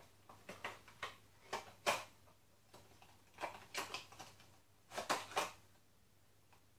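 Small clicks, taps and rustles of hands handling a small boxed ornament and its packaging, coming in clusters over about five seconds.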